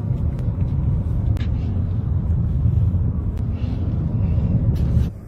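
A car driving, with a steady low rumble of road and engine noise and a few faint clicks; it cuts off about five seconds in.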